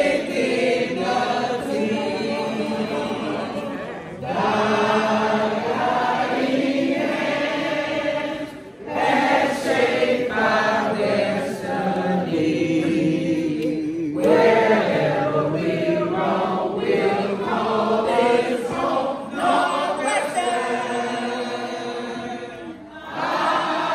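Many voices singing together as a crowd, in long phrases with short pauses between them.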